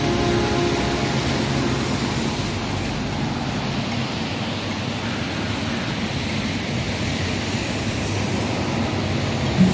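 Road traffic on a wet city street: a steady hiss of tyres on wet asphalt as vehicles, among them a double-decker bus, drive close past.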